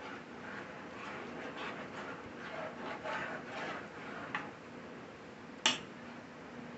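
A spoon stirring gravy in a roasting pan: soft liquid swishing and scraping against the pan. A small click and then a sharper click, the loudest sound, come near the end.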